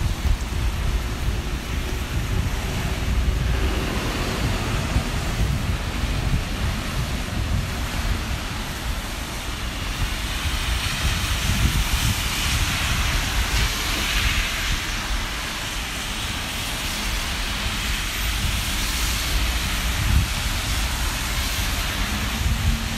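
Steady city street noise with traffic going by and wind buffeting the microphone, with no single event standing out.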